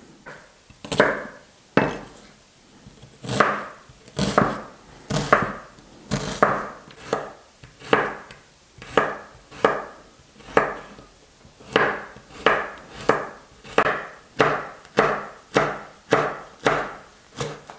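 A kitchen knife slicing through onion, garlic and green chili pepper and striking a wooden cutting board, in a steady run of cuts about two a second.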